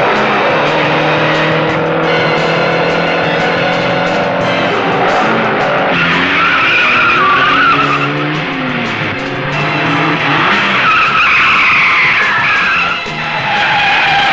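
Car engines revving hard, rising and falling in pitch, with tyres squealing through the bends from about six seconds in.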